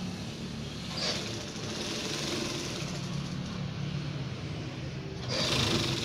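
Industrial corner sewing machine running steadily, stitching binding tape onto the edge of a spring-bed mattress. Two short hissing swishes come about a second in and near the end.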